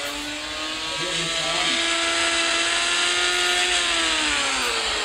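A motor running with a steady whine over a hiss that grows louder after the first second; its pitch sags near the end and then climbs again.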